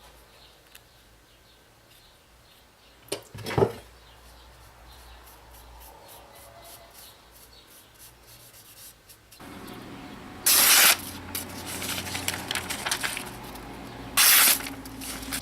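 Two short hissing sprays, each about half a second, the second about four seconds after the first, amid rubbing and handling noises; two light knocks come earlier.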